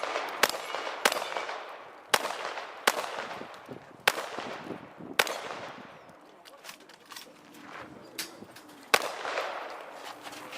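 Shotgun fired seven times at uneven intervals, each shot leaving a fading echo, with a longer pause before the last shot near the end.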